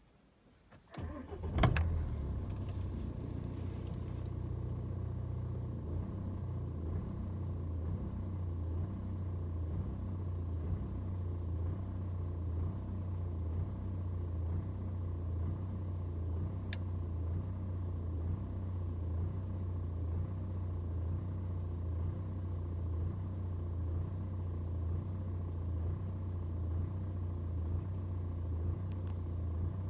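BMW 120d's N47 four-cylinder turbodiesel cranking briefly and firing up from cold about a second in, then idling with an uneven, pulsing beat. This is the rough cold-start idle, with the revs fluctuating, that clears once the engine is warm.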